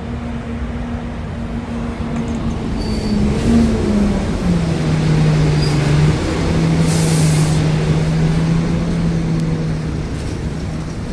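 Volvo B7TL bus's six-cylinder diesel engine and drivetrain running under way, a steady tone that drops in pitch about four seconds in as the bus gets louder, typical of a gear change while accelerating. A short hiss about seven seconds in.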